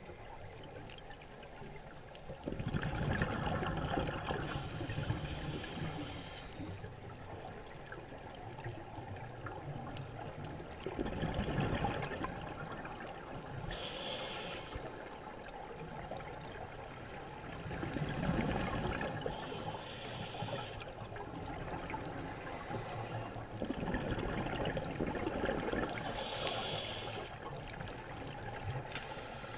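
Scuba regulator breathing underwater: a steady watery rush of bubbles that swells with each breath, roughly every six to seven seconds, several breaths carrying a brief high hiss.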